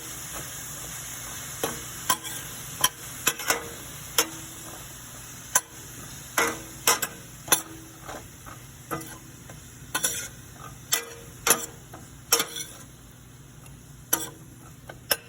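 Broccoli florets sautéing in olive oil in a pan, sizzling steadily, while a utensil stirs them and knocks against the pan many times at irregular intervals.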